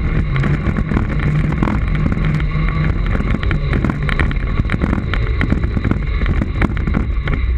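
Segway rolling over a dirt forest track: a steady low rumble and hum with wind buffeting the microphone, and frequent small knocks and rattles from the bumpy ground.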